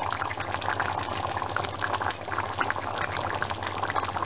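Butter chicken gravy bubbling in the pan on the stove, a dense run of small irregular pops and blips over a steady low hum.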